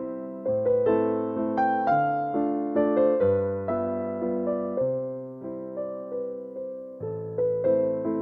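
Background music: a slow, gentle piano melody over low bass notes, each note struck and then fading.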